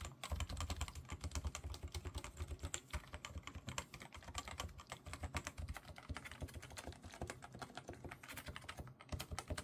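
Fast continuous typing on a Topre Type Heaven keyboard, its contactless capacitive rubber-dome keys clacking many times a second with a brief pause near the end. The switches' lubrication has been wiped off in cleaning, which the owner finds makes the sound not a good one.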